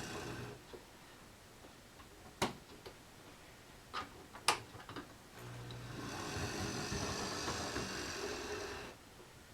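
Model railway locomotive running on the track, its small electric motor humming with wheel-on-rail noise; it stops about half a second in, a few sharp clicks follow, then it runs again for about three and a half seconds and stops.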